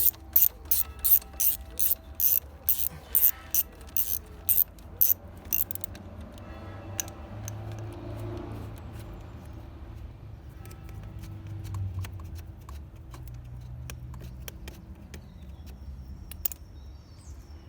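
Quarter-inch ratchet with a 12 mm socket clicking as a tight brake-caliper bolt is run out, about three pawl clicks a second. After about six seconds the clicking stops, leaving quieter handling with a few scattered clicks.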